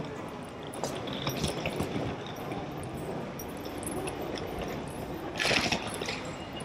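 Train station concourse ambience: a steady hiss of background noise with scattered faint clicks, and a short burst of louder noise about five and a half seconds in.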